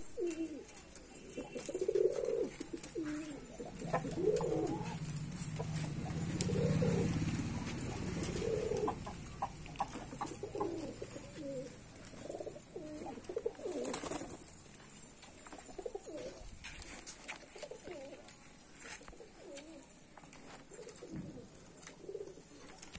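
Flock of domestic pigeons cooing, many low calls overlapping and repeating without a break.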